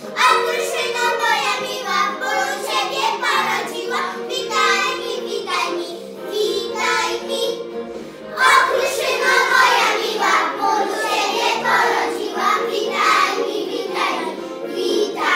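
A group of young children singing a Polish Christmas carol together over instrumental backing music. The singing dips briefly just before the middle, then comes back louder.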